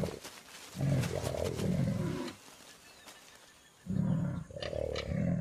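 Jaguars growling in two long, rough bursts, about a second in and again near the end: the aggressive snarling of a courtship encounter between a male and a female, where the urge to mate clashes with the urge to fight.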